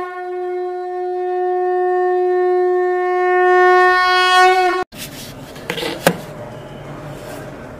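A single long blown note from a horn-like wind instrument, held steady for about five seconds, dipping slightly in pitch just before it stops abruptly. Then comes quieter room noise with two short knocks.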